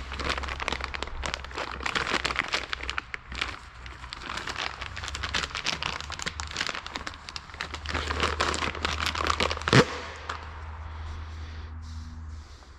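Rapid, irregular clicking and scraping of hand tools working on metal suspension parts, with one sharp metallic clank about ten seconds in, over a steady low hum.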